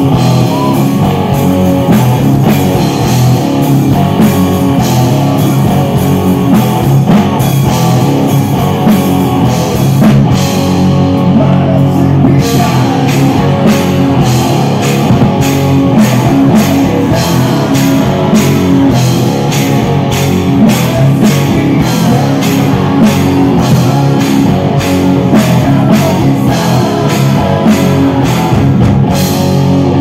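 Live rock band playing loud: distorted electric guitars over a drum kit, with a steady drum beat that becomes sharper and more regular about twelve seconds in.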